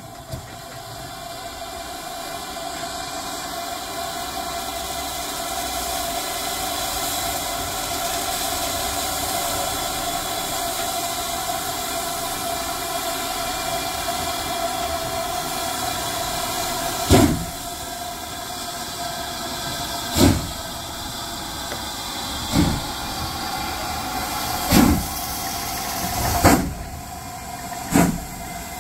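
Great Western steam locomotive hissing steadily as steam escapes at its cylinders. It then starts away: about halfway through come heavy exhaust chuffs, six of them, a few seconds apart at first and coming closer together as it picks up speed.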